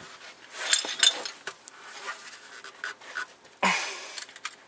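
A man breathing hard and grunting with effort, twice, as he heaves on a breaker bar to break loose a rusted brake caliper bolt, with a couple of light metallic clicks from the tool.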